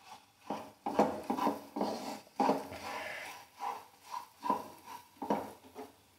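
A spoon scraping and knocking around a kadhai in irregular strokes about twice a second, stirring coarsely ground soaked almonds into semolina roasted in ghee.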